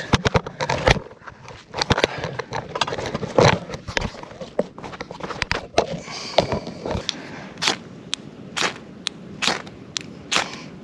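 Ferro rod being struck with a striker to throw sparks onto char cloth: a series of short, sharp scrapes, irregular at first, then a steady run of about two strikes a second in the second half, trying to catch an ember.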